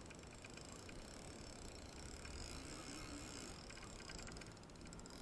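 Spinning reel being cranked, its gears giving a fast, fine ticking as line is wound in against a bent rod, reeling in a hooked fish.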